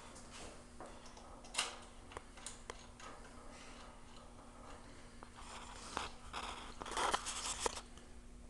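Light metallic clicks and taps from hands adjusting the blade clamp and setting head of a band saw blade sharpener and setter, with a quick run of rattling clicks near the end.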